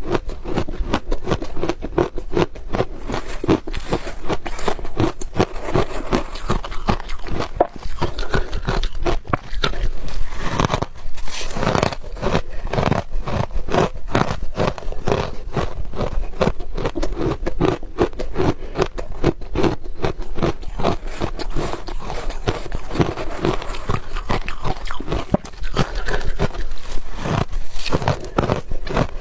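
Close-up crunching and chewing of hard ice, with rapid crunches one after another and a louder run of bites about ten seconds in.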